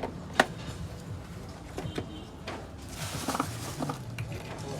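Plastic clicks and knocks as a Canon imageRUNNER copier's drum unit is handled and its new drum fitted, with one sharp click about half a second in and a few lighter ones later, over a low steady hum.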